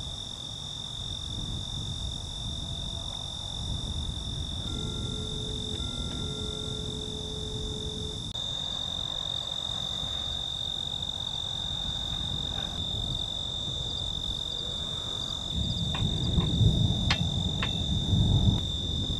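Night insects keep up a steady, high, unbroken trill over a low rumbling background, and the rumble grows louder near the end.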